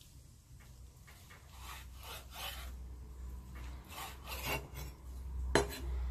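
Rough scraping strokes in two short groups, then a single sharp knock near the end, over a steady low hum.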